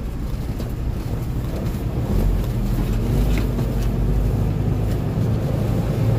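Inside a semi-truck's cab: the diesel engine drones steadily with road noise and a few light rattles as the truck rolls along a dirt road.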